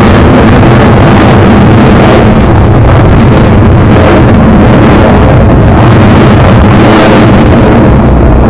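F-16 fighter jet's engine roaring as it flies overhead, a loud steady noise that overloads the microphone.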